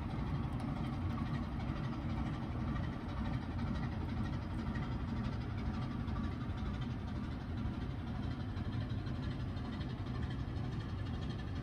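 Slow-speed marine diesel engine of an inland cargo ship running steadily under way, a low, even sound with no change in speed.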